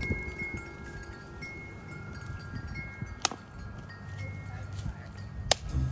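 Wind chimes ringing, with several clear notes of different pitch sounding and fading in turn. Two sharp clicks come about two seconds apart, the second one near the end.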